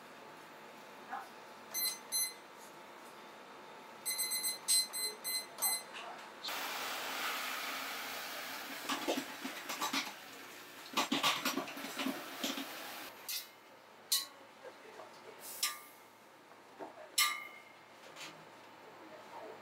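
Electronic beeps from a digital kitchen timer or thermometer: a couple about two seconds in, then a quick run of them around four to six seconds. A steady hiss follows for about six seconds with a few knocks over it, ending in scattered clicks.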